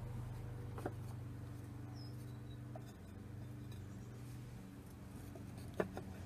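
Two light clicks of clay pieces being set down on a kiln shelf, one about a second in and a louder one near the end, over a steady low hum.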